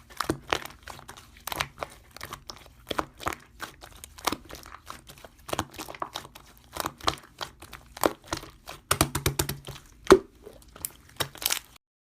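Close, irregular crinkling and crackling: a run of sharp little clicks and snaps, several a second, with one louder snap about ten seconds in.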